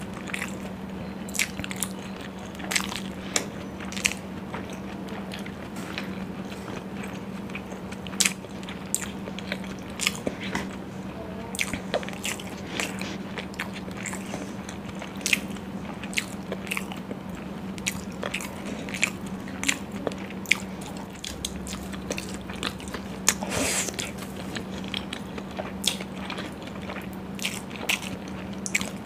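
Close-miked eating sounds: chewing soft paneer cubes in butter masala gravy, with frequent short, sharp wet mouth clicks and smacks. A steady low hum runs underneath.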